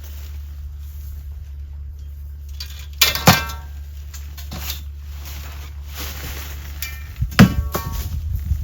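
Two sharp metallic clanks about four seconds apart, each ringing briefly, over a steady low hum.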